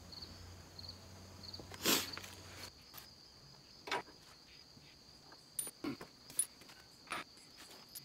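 Steady high chirring of crickets, broken by a few short knocks and clicks as hardware is handled under the truck's rear frame; the loudest knock comes about two seconds in.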